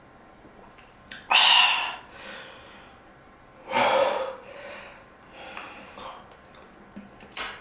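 Loud mouth and breath sounds of a person eating and drinking: three hissy bursts about a second apart, then a short sharp click near the end.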